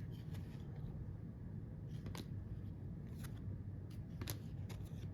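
Faint, irregular ticks and snaps of trading cards being handled and flipped through, over a low steady hum.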